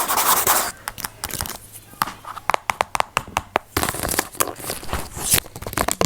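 Close-miked ASMR trigger sounds: crackly, tearing-like rustling with a quick run of sharp clicks and taps about halfway through.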